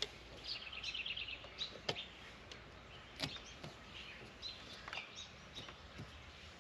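Songbirds chirping, with a quick trill of repeated high notes about half a second in, and a few sharp clicks about two and three seconds in.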